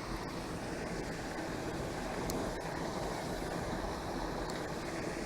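Steady hiss of wind and moving water, with no distinct events.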